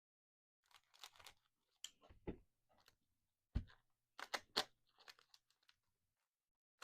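Trading cards and their packaging being handled: a string of short rustles and crackles of card stock and foil wrapper, with two soft knocks, one about two seconds in and one about three and a half seconds in.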